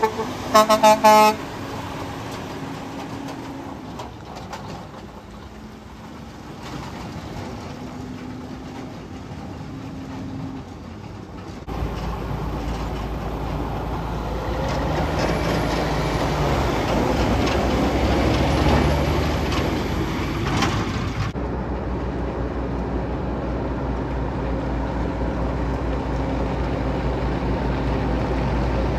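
A semi truck's air horn sounds in short blasts at the very start as a Western Star tractor with a bulk tank trailer pulls out. Then heavy diesel truck engines: a cement mixer truck drives past, its engine growing louder, and after a cut a dump truck's engine runs steadily.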